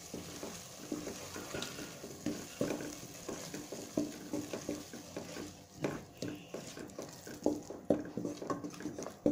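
Wooden spatula stirring a thick onion and tomato masala in a pot, with many short scrapes and knocks against the pan, several a second. A light sizzle underneath thins out about halfway through.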